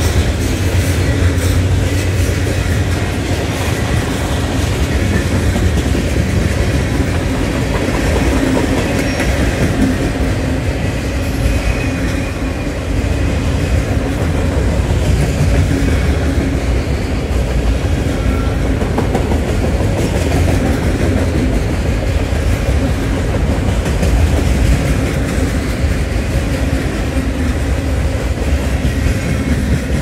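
Norfolk Southern freight train's autorack cars rolling past at close range: a steady rumble of steel wheels on rail, clicking over the rail joints.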